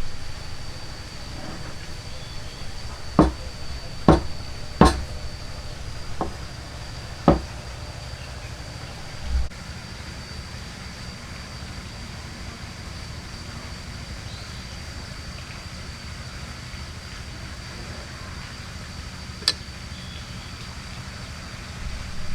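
Hand woodworking: sharp knocks of tools on wood, five in quick succession within the first several seconds and one more much later, over a steady faint high whine.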